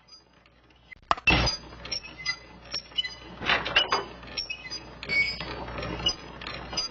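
Irregular clinks and knocks, several in a row after about a second, with a few short squeaky sounds in between.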